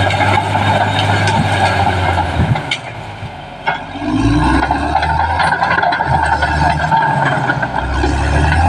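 Caterpillar D6R XL bulldozer's diesel engine running steadily under load. The sound drops away for about a second and a half around three seconds in, then comes back up at a changed pitch. A few sharp knocks or cracks stand out in the first half.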